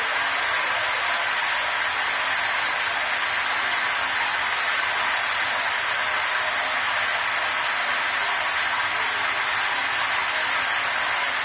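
Shower running steadily: an even spray of water hissing down, with no change.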